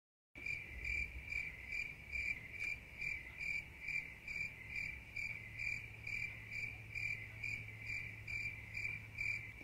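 A cricket chirping in a steady rhythm, about two chirps a second, starting suddenly after a moment of dead silence.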